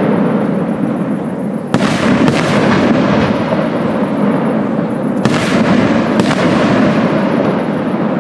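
Aerial firework shells bursting in a professional display: sharp bangs about two seconds in and again about five and six seconds in, over a constant dense rumble of the show.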